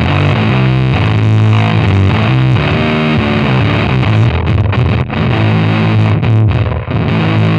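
Fender Precision Bass played through a Fuzzrocious Heliotropic fuzz pedal, a modded Big Muff–style bass fuzz. It plays a heavy, distorted riff of held low notes, with a drum kit playing along.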